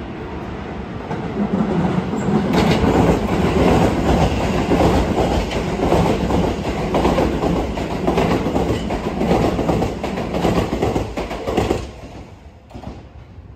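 Electric commuter train passing close by, its wheels clacking rapidly over rail joints under a heavy rumble. The sound builds over the first couple of seconds and drops away sharply near the end as the train clears.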